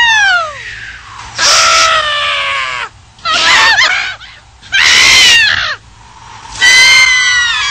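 A run of loud, high-pitched screams, about five in quick succession. Each lasts roughly a second and most slide down in pitch, with short gaps between them.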